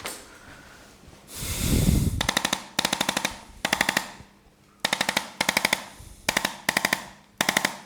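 Handheld electric percussion adjusting instrument firing in short bursts of very rapid clicks, about eight bursts of roughly half a second each, used to adjust the lower back. A brief rushing noise comes just before the first burst.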